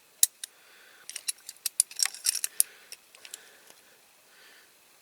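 Small sharp metallic clicks and scrapes of a screwdriver tip working against the tabs of a diecast toy truck's base, prising them up. One loud click comes just after the start, then a quick run of clicks about one to three seconds in, and a few more after.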